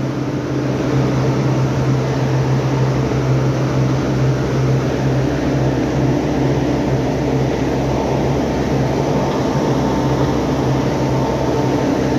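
Steady drone of running industrial machinery: a low hum with a few higher steady tones over a constant rushing noise.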